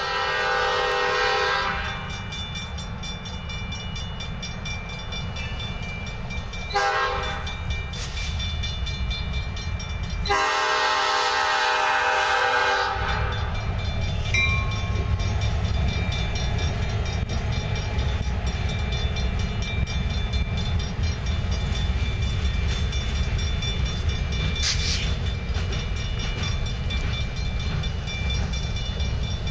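EMD GP38-2 diesel locomotive sounding its horn for a grade crossing: a long blast, two shorter ones, then a long blast, over the steady ringing of the crossing bells. From about halfway on, the locomotive's diesel and the loaded covered hopper cars rumble and clatter past on the rails.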